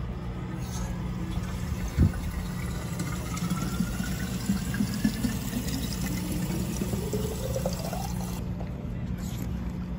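Tap water pouring from a faucet into a water bottle through its narrow spout, the tone of the filling rising steadily from about three seconds in to about eight as the bottle fills. A single knock about two seconds in.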